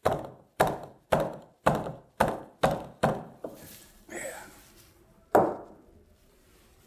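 Fist pounding on a wooden beam, about eight sharp knocks roughly two a second, knocking apart a four-sided dovetail joint. Softer handling of the wood follows, then one more sharp wooden knock a little after five seconds in.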